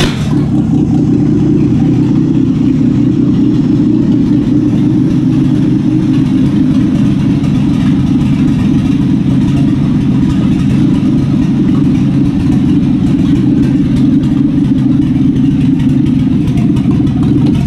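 Buick 3.8-litre V6 running steadily on an engine stand, outside any car, just after being started.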